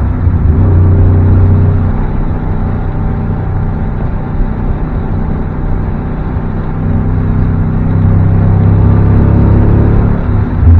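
SN95 Mustang's Ford modular V8 running under way on a test drive, a steady low engine and exhaust drone. It eases off about two seconds in and comes back up louder for the last few seconds, dipping briefly just before the end.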